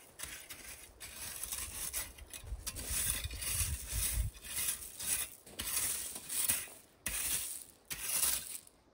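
A rake dragged through crushed gravel in repeated uneven strokes, the stones scraping and clinking, with a couple of short pauses between pulls.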